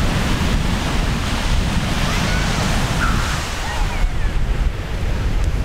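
Gusting wind buffeting the microphone, with a low rumble, over the steady wash of Gulf surf.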